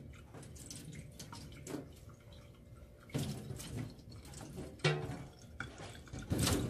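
Water splashing and dripping in a sink as a wet kitten is rinsed by hand, in uneven surges with a few louder splashes.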